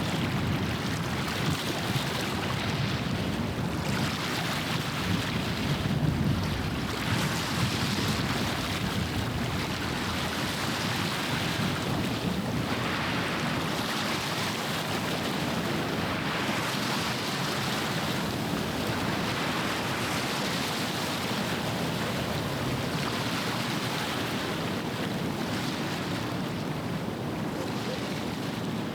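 Waves washing against the Westerschelde shore, with wind on the microphone: a steady rushing noise that swells and fades every few seconds.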